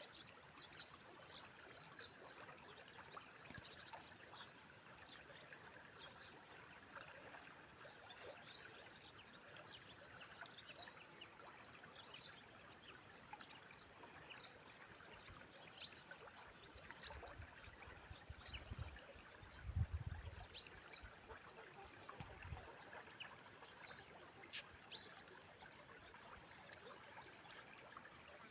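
Faint sound of a river running: a steady hiss of flowing water dotted with small splashes and trickles. A few low rumbling bumps come about two-thirds of the way through.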